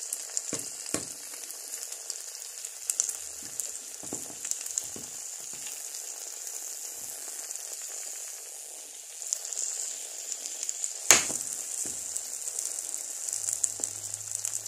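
Egg frying in butter in a small non-stick pan: a steady sizzle with scattered crackles and a few light taps of a spatula early on. Near the end a single sharp knock as the pan is set back down on the glass hob.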